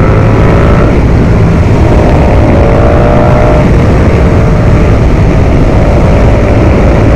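Ducati Multistrada V4 Pikes Peak's 1158 cc V4 engine running at speed, with heavy wind rush over the microphone. The engine note climbs briefly about halfway through, then settles into a steady pitch.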